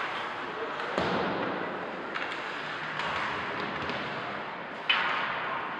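Ice hockey play in a rink: two loud, echoing bangs, about a second in and near the end, and a smaller knock about two seconds in, over the hall's steady murmur.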